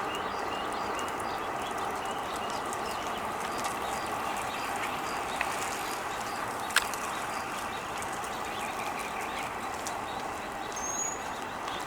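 Steady outdoor background noise with faint small bird chirps repeating through it, one sharp click about seven seconds in, and a brief high whistle near the end.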